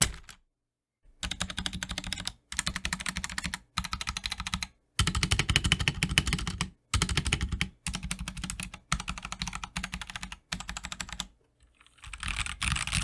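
Typing on a Royal Kludge RK84 mechanical keyboard with its stock switches, which are pingy: rapid keystroke clatter in runs of about a second each, separated by brief gaps.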